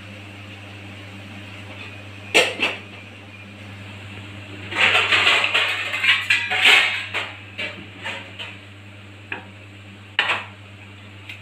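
Stainless steel plates and dishes clattering against each other as they are pulled from a kitchen drawer, a run of sharp clinks and knocks about five seconds in, with single knocks before and after. A steady low hum runs underneath.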